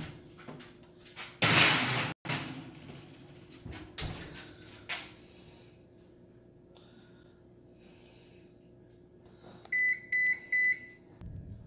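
Kitchen appliance keypad beeping four short times in quick succession near the end, as buttons are pressed to set it. A loud clatter comes about a second and a half in, and a low hum starts just after the beeps.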